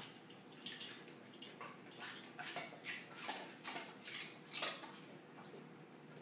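Golden retriever at ice cubes, making a quick series of wet licking and crunching mouth noises, about two or three a second, that stop about three quarters of the way through.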